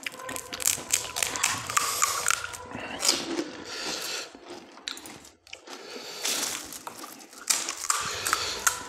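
Crisp, hollow panipuri (golgappa) shells cracking as they are poked open with the thumb and crunched between the teeth, with chewing: a quick, irregular run of crunches and crackles with a brief lull about halfway through.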